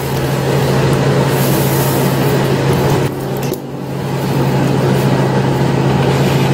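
Steady machine hum with an even rushing noise from the running kitchen appliances around a pot of simmering broth on an induction cooktop, dipping briefly about three seconds in.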